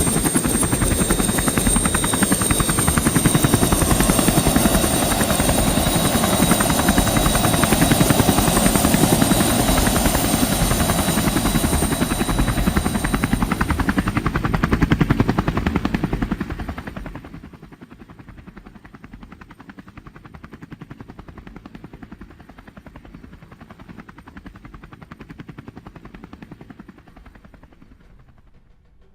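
Helicopter running, a loud rapid chopping with a high steady whine. A little over halfway through the sound drops sharply, then fades away.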